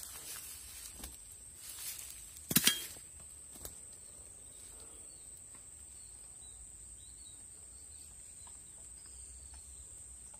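Insects chirring steadily at a high pitch in rural countryside, with faint bird chirps. A few knocks and rustles come in the first three seconds, the loudest a sharp double knock about two and a half seconds in.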